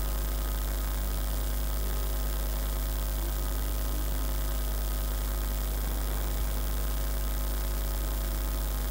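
Steady electrical mains hum in the audio line, a low buzz with a row of higher overtones and a light hiss, unchanging throughout.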